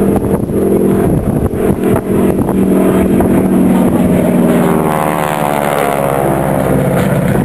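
North American Harvard IIB trainer's Pratt & Whitney R-1340 Wasp radial engine and propeller passing low and close, loud, the engine note falling in pitch as it goes by about four to six seconds in.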